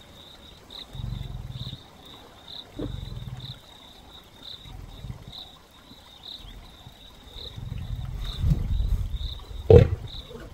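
Male lion growling at cubs pulling his tail: two short low rumbles, then a longer growl that builds to a loud snarl near the end, the sign of an annoyed adult warning them off. A high insect chirp repeats steadily, about three times every two seconds.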